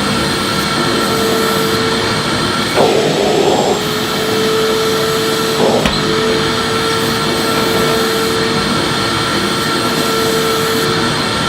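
Electric vacuum cleaner running steadily with a constant whine, being pushed over the floor; the sound swells into a louder rush for about a second about three seconds in, and there is a short knock near six seconds.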